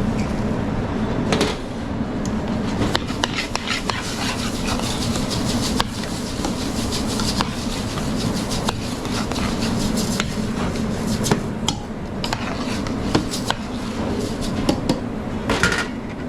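Metal kitchen utensils, pans and dishes clattering and knocking irregularly, over a steady low mechanical hum.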